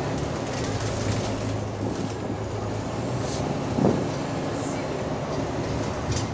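A bus's diesel engine running steadily, heard from inside the bus, a low continuous hum; this bus has a known exhaust leak. A single short thump a little under four seconds in.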